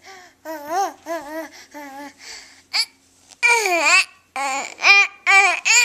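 A baby babbling in a run of short, high-pitched syllables, getting louder about halfway through.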